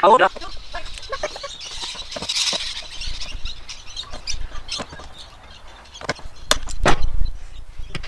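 Clicks and snaps from a hand tool working a small metal fitting into a hard plastic case, ending in two sharp loud snaps about half a second apart near the end. Hens cluck briefly at the very start.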